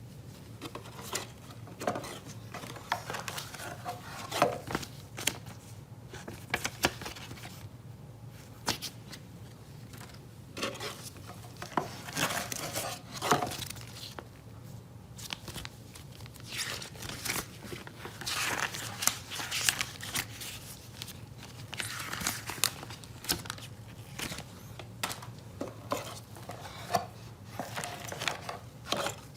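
Plastic packaging crinkling and tearing, with scattered clicks and taps of handling, over a steady low hum.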